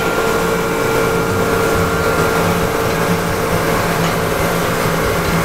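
Steady hum and hiss of dry cleaning pressing machinery running, with a steady mid-pitched tone that fades out about four seconds in.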